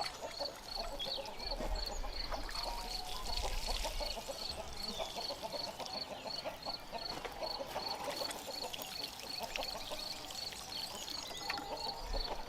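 Water pouring and splashing onto tomato plants and soil as they are watered.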